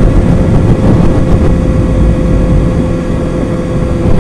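Kawasaki ZX-6R 636's inline-four engine running at a steady speed on the move, under heavy wind rumble on the action camera's microphone.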